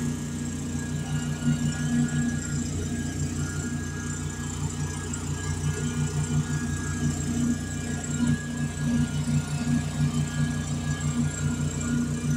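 Truck-mounted carpet-cleaning machine running steadily, a low engine and vacuum-blower hum with a slight throb.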